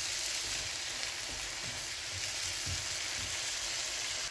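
Shredded cabbage and carrot sizzling steadily in hot oil in a frying pan while being stirred and mixed.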